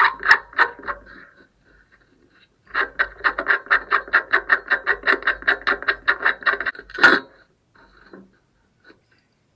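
A rapid, even run of mechanical clicks, about six a second, lasting about four seconds and ending in a louder knock; a few scattered clicks come about a second before it.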